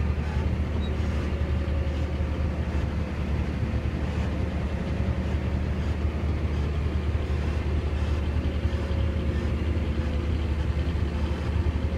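A John Deere tractor's engine running steadily, heard from inside the cab as an even low drone with a faint, steady whine above it.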